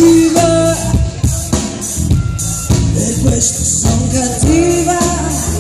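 Live pop-rock band playing: a woman singing over drum kit, electric bass and electric guitar, with a long held sung note at the start and another near the end.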